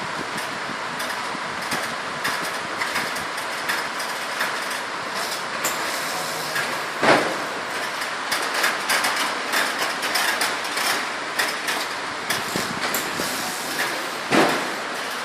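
Steady mechanical running noise with frequent clicks and rattles, and two louder clanks, about seven seconds in and near the end.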